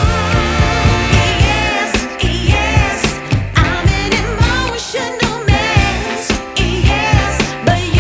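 Background music: a soul-pop song with a singing voice over a steady drum beat.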